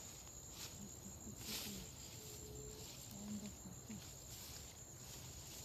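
Insects keeping up a steady, high, even drone in woodland, with scattered faint crunches and rustles through it.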